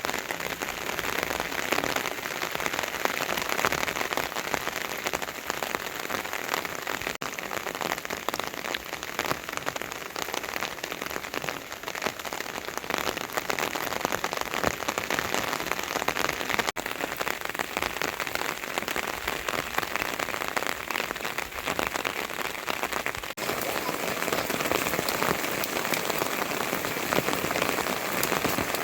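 Steady rain falling, a dense even hiss of countless drops striking surfaces, broken by three momentary dropouts.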